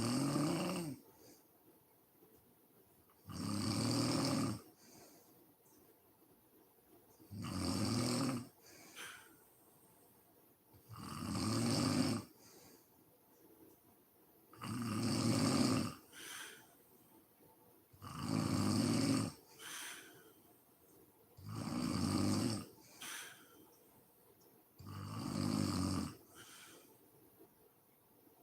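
A sleeping woman snoring in a steady rhythm, about eight loud snores roughly every three and a half to four seconds, each lasting about a second. Several are followed by a brief, fainter sound.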